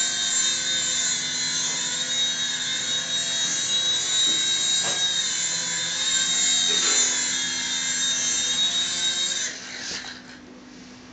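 Small indoor RC toy helicopter in flight: the steady high whine of its little electric motors and spinning rotors. Near the end the whine drops off sharply and fades as the helicopter comes down.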